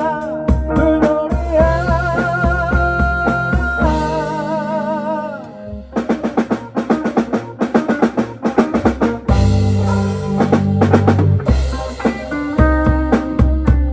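Background music with a drum kit, bass and wavering held melody notes. About five seconds in the music drops out briefly, then comes back with fast, busy drumming.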